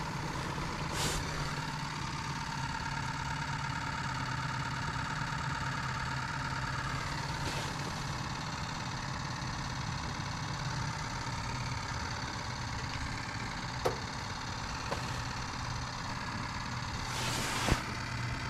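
Steady low machine hum with a constant higher tone above it, like an engine idling, with a few brief rustles and a couple of sharp clicks near the end.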